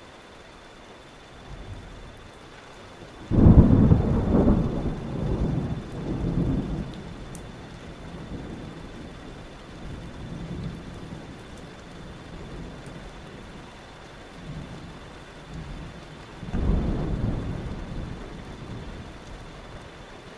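Thunderstorm: a clap of thunder about three seconds in that rolls on in waves for several seconds, and a second rumble of thunder near the end, over a steady hiss of rain.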